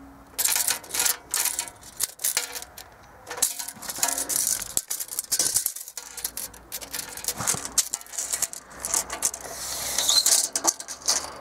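Steel tape measure rattling and clicking as its blade is pulled out and handled along a steel plow blade, a dense run of irregular clicks with a swelling scrape about ten seconds in.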